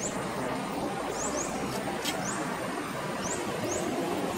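Short, high rising chirps of small birds repeating every half second or so over a steady background noise of outdoor ambience.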